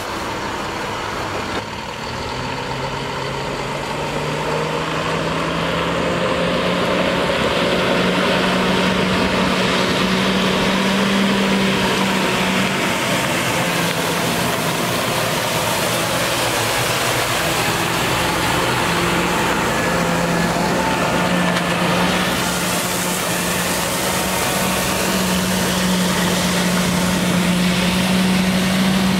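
The inline-six International MaxxForce DT diesel of a water truck running under load in first gear, driving its PTO water pump, with the hiss of water spraying from the spray bar. The engine speed climbs over the first few seconds, then holds steady.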